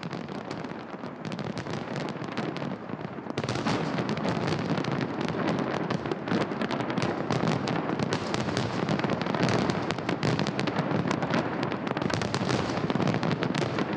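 Fireworks salute crackling and popping densely, many small bursts overlapping into a continuous crackle that gets louder and fuller about three seconds in.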